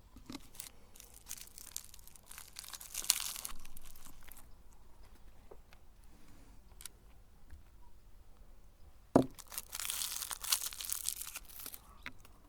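Cookies being crushed and ground in a meat grinder: two bursts of dry crackling and crunching, each a couple of seconds long, the second starting with a sharp knock, with scattered clicks between.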